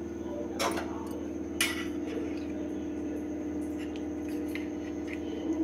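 Stainless steel spoon clinking against steel bowls and a thali, two sharp clinks about a second apart and then a few faint ticks, over a steady low hum.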